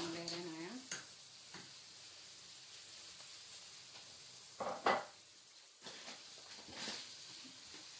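Chopped tomatoes and onions frying in oil in a pan, a steady sizzle, as a spoon stirs them. A louder clatter of the spoon in the pan comes about halfway through.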